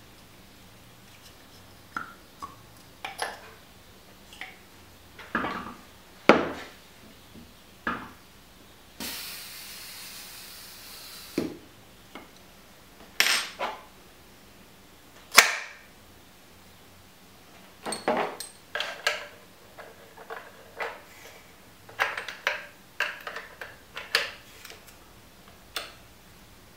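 Irregular metal clicks and clinks of a wrench and fork parts being handled as the air-chamber cap of a RockShox Boxxer fork leg is fitted and wrenched, with a steady hiss lasting about two seconds about nine seconds in.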